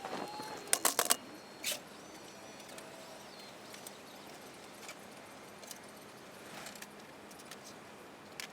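A few sharp clatters and knocks in the first couple of seconds, then a quiet background with occasional faint ticks.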